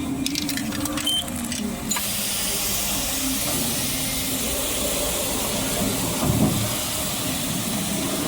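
A few sharp clicks as quarters go into a coin-operated car wash, then about two seconds in the high-pressure spray wand starts and hisses steadily over the low hum of the wash bay's pump.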